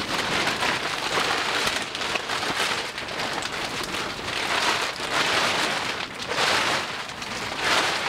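Black plastic groundsheet rustling and crinkling as it is pulled from its bag and shaken open, with louder surges of crackle at each shake.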